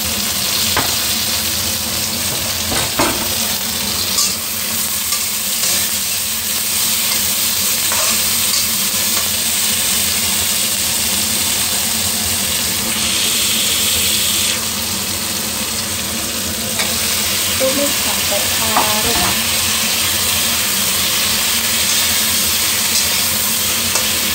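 Chilies, tomatoes and shallots sizzling in hot oil in a wok as they are stir-fried. A metal spatula scrapes and clicks against the pan now and then.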